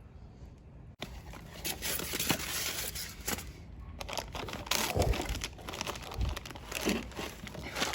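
Packaging from a big bore engine kit being rummaged through and unwrapped: crinkling and rustling that starts about a second in and goes on irregularly, with a couple of low bumps from parts being handled.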